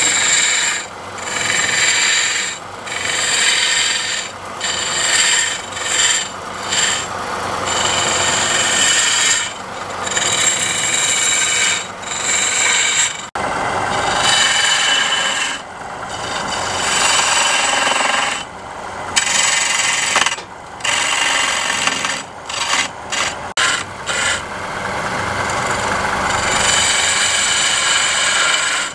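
Hand-held turning chisel cutting into a wooden blank spinning on a lathe: a hissing, scraping rasp of wood being shaved, in long passes broken by many short gaps.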